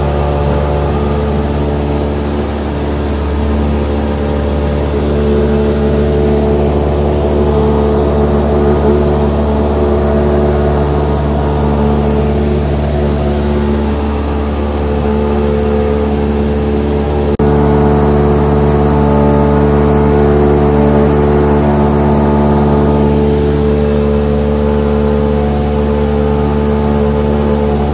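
Light single-engine propeller airplane's piston engine and propeller droning steadily at climb power after takeoff, heard from inside the cabin. A short click about two-thirds of the way through, after which the drone is slightly louder.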